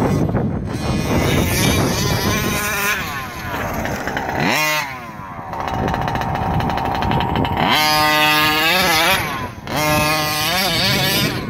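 Losi 5ive-T 1/5-scale RC truck's OBR 47cc two-stroke gas engine revving hard and easing off over and over as the truck is driven across dirt. There is a sharp climb about four and a half seconds in and a high rev held for a second or so after it.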